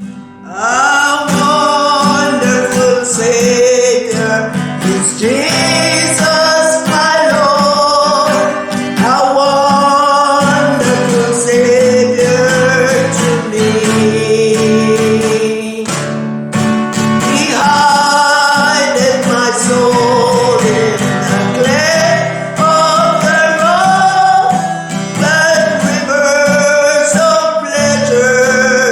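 Music: a singing voice over plucked guitar accompaniment.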